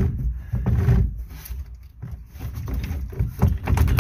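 Rotary steering helm and its push-pull cable being handled: irregular low rumbling and rubbing, with a few short knocks, as the cable is moved in and out of the helm housing.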